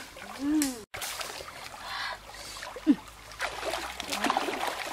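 Shallow creek water splashing and sloshing as a person wades and grapples with a snake, with a few short vocal exclamations. The sound drops out completely for an instant about a second in.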